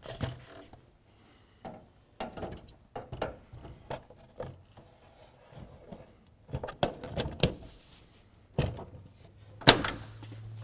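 Truck grille being pushed back into its plastic retaining clips on a Toyota Tundra's front end: a series of short plastic clicks and knocks, irregularly spaced, with the loudest snaps near the end.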